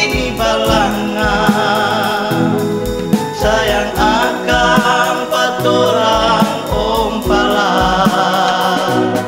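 A Manado Malay pop song: sung vocals in the Manado language over a band accompaniment with a steady beat.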